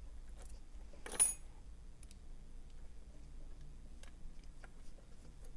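Small metal clicks and scrapes of hand tools working at a lock's tight circlip while it is disassembled, with one sharp metallic click about a second in.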